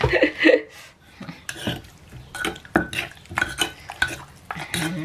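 Wooden pestle pounding and mashing soft eggplant-and-fish paste in a clay mortar, with a metal spoon scraping and clinking against the bowl. It makes an uneven run of dull knocks, about three or four a second, as the mash is worked soft.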